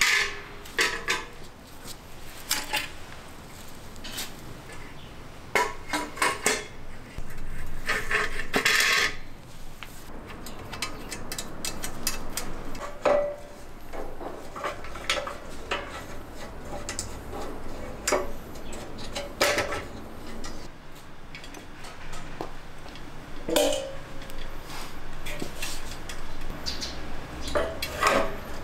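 Metal flower-stand parts clanking and clinking as they are handled and fitted together, in irregular knocks.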